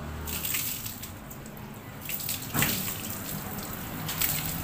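Water running and splashing as a wet dog is rinsed of shampoo, with a couple of sharper splashes partway through and near the end.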